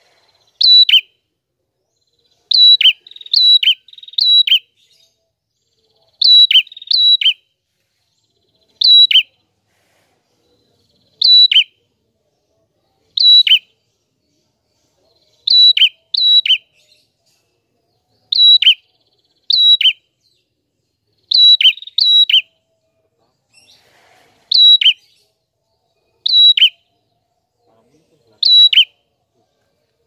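Red-headed prenjak (prenjak kepala merah), a small caged songbird, singing a clear call over and over. Each note is short and sharp and sweeps down in pitch. The notes come singly or in quick runs of two or three, every second or two.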